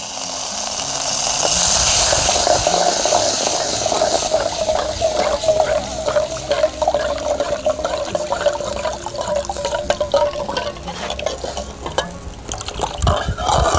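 Green banana-leaf and cornflour liquid poured from a steel bowl into a hot pan of ghee, with a hiss loudest in the first few seconds, then a metal ladle clinking and scraping as it stirs the mixture in the pan.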